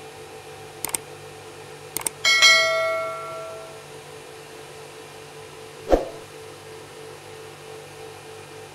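Subscribe-button animation sound effect: two short clicks, then a single bell ding that rings out and fades over about a second and a half. A sharp thump follows about six seconds in, over a steady low hum.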